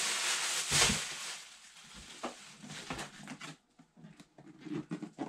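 Plastic packaging crinkling and rustling for about the first second and a half, then a scatter of light clicks and knocks as the resin printer's red acrylic cover is lifted off.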